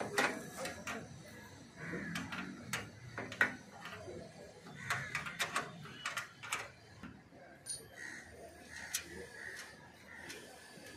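Irregular metallic clicks and taps of a hand wrench working bolts and clamps on aluminium solar-panel mounting rails.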